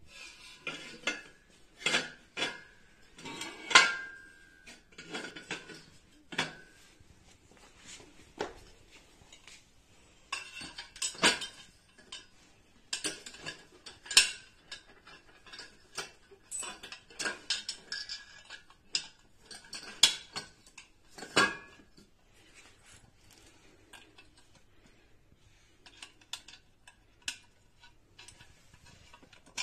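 Galvanized steel fence pipes, clamps and tension bars being handled and fitted together: scattered metal clinks and knocks at irregular intervals, some ringing briefly. Near the end come smaller, lighter clicks as a bolt and nut go into a clamp.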